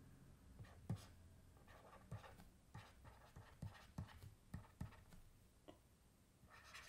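Faint, irregular light taps and scratches of a stylus writing by hand on a tablet screen.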